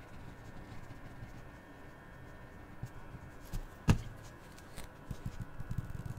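Small handling sounds of craft supplies on a tabletop over a faint low hum: a single sharp click about four seconds in, then light taps and rubs as a glitter glue tube is worked on the paper.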